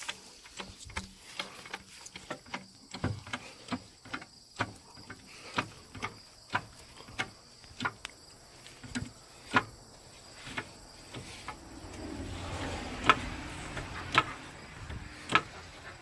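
Hand-spun wheel and brake of a jacked-up Chevrolet Equinox ticking in a steady rhythm, about two ticks a second and slowly spacing out as the wheel slows. About twelve seconds in the wheel is pushed again: a louder rubbing hiss with a few sharp clicks. The tick is taken for ordinary brake rub, with no bearing noise.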